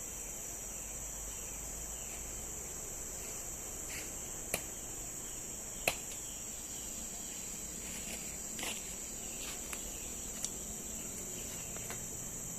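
Steady, high-pitched drone of forest insects, with a few sharp clicks in the second half.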